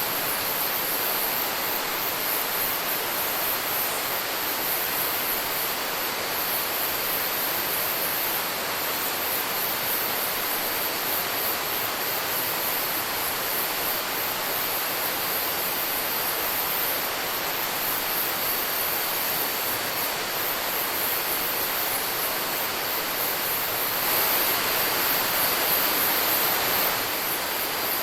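Rainforest ambience: a steady rushing hiss with a high insect trill pulsing above it and a faint steady high tone. The rushing swells louder for about three seconds near the end.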